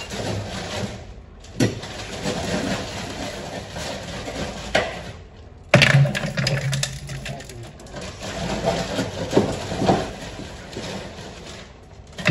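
Ice cubes going into a blender jug of water: a series of sharp knocks and clinks. The loudest comes just before six seconds in, followed by a quick run of clinks.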